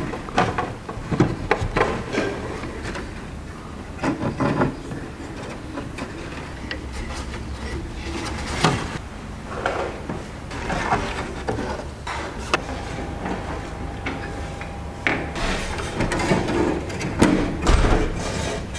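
Thin wire being wrapped around a row of steel nails set in a wooden board: irregular clicks, taps and short scrapes of wire against the nails and wood, with hands handling the wire.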